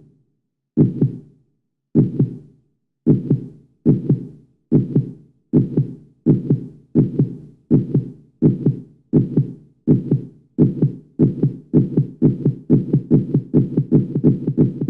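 Heartbeat sound effect: low double thuds (lub-dub) that speed up steadily, from about one beat a second to around three a second near the end.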